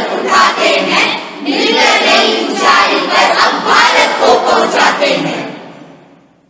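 A group of young voices chanting together in unison, loud and energetic, with a brief pause about a second and a half in, then fading out near the end.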